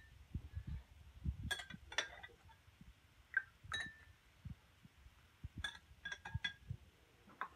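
Metal spoon clinking irregularly against glass goblets of liquid Jello, each clink ringing briefly, with dull low knocks from the glasses being handled on the counter.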